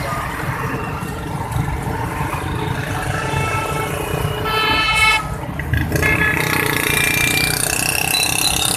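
Vehicle horns honking in busy road traffic over a steady low rumble of engines, with the loudest horn blast about halfway through and shorter toots before and after it.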